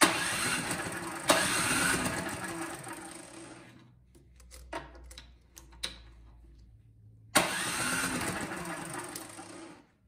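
Toro Power Max snowblower engine cranked over twice by its electric starter, the first crank about four seconds long and the second about two and a half, spinning freely with the spark plug out in its boot for a spark test. The test shows no spark, and the plug is suspected fouled. A few light clicks come between the two cranks.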